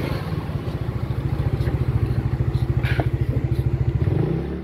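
Small motorcycle engine running at low speed while riding, with a rapid, even pulsing from the engine and exhaust.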